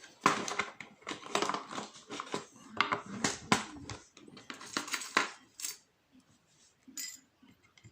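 Small metal parts of an Ahrens euro cylinder lock clicking and clinking as the picked lock is taken apart. The clicks come thick for about five seconds, then only a few faint ones.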